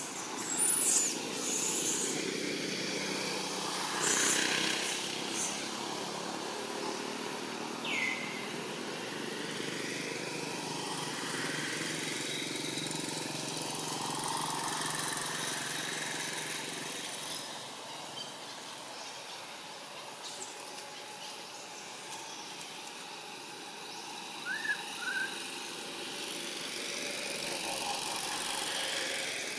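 Outdoor background of a steady motor-vehicle engine hum that eases about halfway through, with a few clicks near the start, one short high falling call about 8 s in, and two short chirps near the end.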